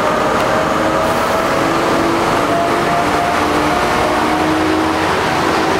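Brookville BL36PH diesel locomotive pulling a train past at close range, its engine running loud and steady under power with a few humming tones in the noise.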